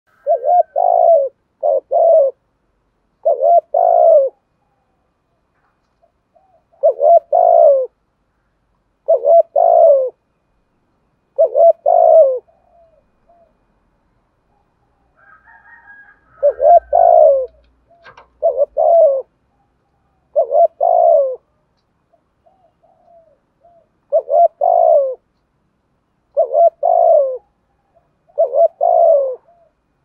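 Spotted dove cooing close up: phrases of two or three low coos, repeated about every two seconds, with a pause of a few seconds a little before halfway.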